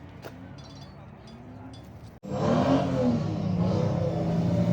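Faint background sound, then an abrupt cut about two seconds in to a loud car engine running at high revs, its pitch rising briefly and then holding steady: a drift car at speed.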